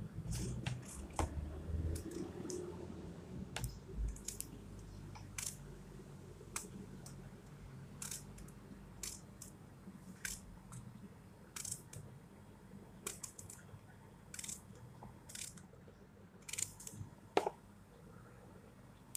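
Small paring knife cutting through a raw aubergine held in the hand, making irregular crisp cuts and clicks about one or two a second, with pieces handled in a plastic tub. The loudest click comes near the end.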